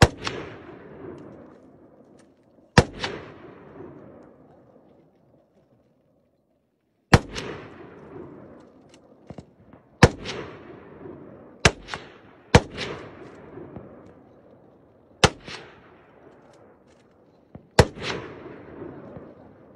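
About eight rifle shots fired at irregular intervals, each a sharp crack followed by a long echo dying away off the surrounding mountainside. Several come in quick succession just past the middle.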